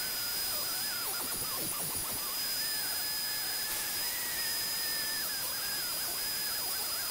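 Flex-shaft rotary tool running with a small bit held against wood, carving detail: a steady high whine whose pitch wavers up and down as the bit meets the wood, a little higher through the middle.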